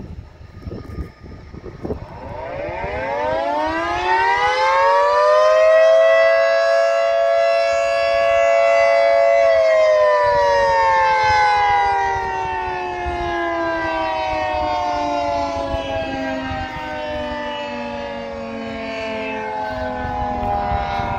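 Federal Signal 2T22 dual-tone electromechanical siren sounding the noon blast: it winds up over a few seconds to a steady two-note chord, holds it briefly, then winds down in a long, slowly falling wail.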